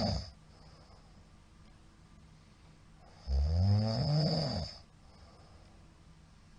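A man snoring, very loud. The tail of one snore is at the very start, then one full snore comes about three seconds in and lasts about a second and a half, its pitch rising and then falling.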